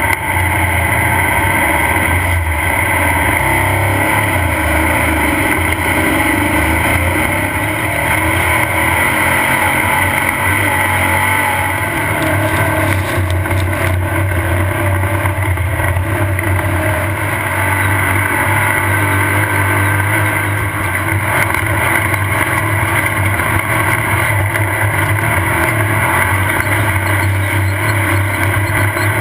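Off-road desert race buggy's engine running loud and steady at speed.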